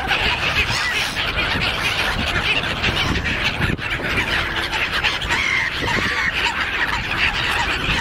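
A flock of gulls calling continuously while being fed, many short overlapping screeching calls at once, over a steady low rumble.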